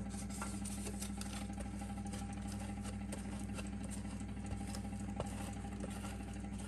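A steady low hum, like an appliance or electrical hum, with a few faint light ticks.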